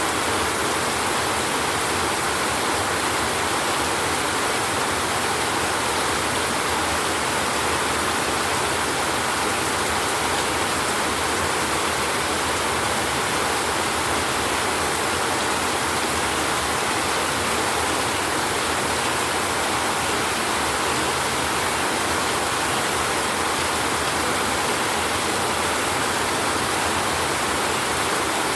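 Steady, even rain noise with no thunder or single drops standing out.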